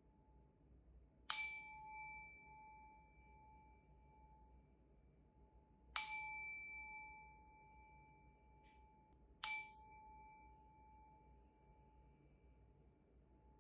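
Singing bowl struck three times, each strike ringing out with a few clear bell-like tones that fade over several seconds, the low hum lingering faintly between strikes.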